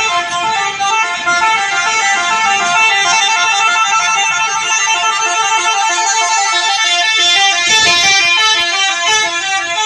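Tour bus telolet horn, a multi-trumpet musical air horn, playing a quick melody of notes that change every fraction of a second without a break.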